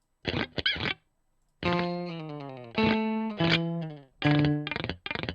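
Sampled Stratocaster electric guitar from the EastWest Quantum Leap Stratocaster library, played from a keyboard. A few short notes, a brief gap, then a long note that slides down in pitch, followed by more notes and quick choppy stabs near the end.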